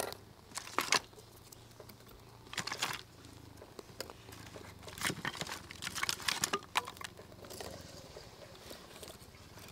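Dry split kindling sticks being laid and shifted in a clay charcoal stove: scattered light clicks and knocks of wood on wood and on the stove, in short clusters, busiest about halfway through.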